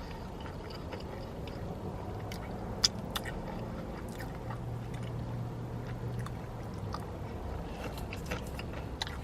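Close-miked chewing and mouth sounds of a person eating, with scattered soft clicks and a faint low hum underneath.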